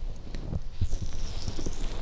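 Fingers rubbing and pressing on the fluffy fur covers of a binaural microphone, giving soft muffled thumps and a brushy rustle that swells about half a second in.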